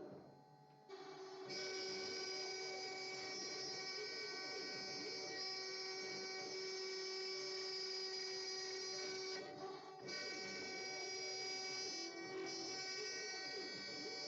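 Tatatronic TT1010SE CNC router's spindle running with a steady high-pitched whine. It starts about a second in and dips briefly twice near the end.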